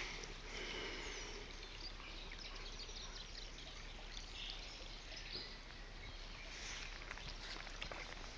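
River water running and lapping around a wading angler, with light splashes from a hooked fish at the surface beside the landing net.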